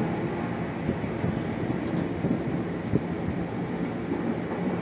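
Running noise inside a JR 205 series electric motor car (MoHa 205-5032) at speed: a steady rumble of wheels on rail with a faint steady hum, and a single short knock about three seconds in.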